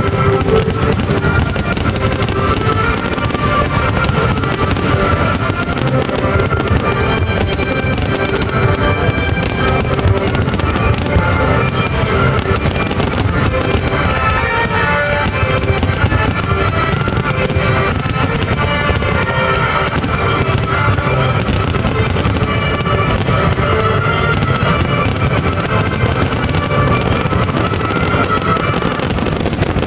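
Fireworks bursting in a dense, continuous barrage of bangs and crackles, with music playing underneath.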